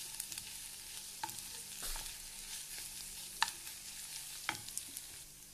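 Sliced onions sizzling in hot oil in a non-stick frying pan as they are stirred. A few sharp clicks of the stirring utensil against the pan sound through it, the loudest about three and a half seconds in.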